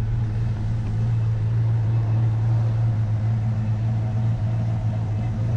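1990 Dodge Ram 150 pickup's throttle-body-injected engine idling steadily, a constant low hum, settling into its idle just after finally starting following a flooded no-start.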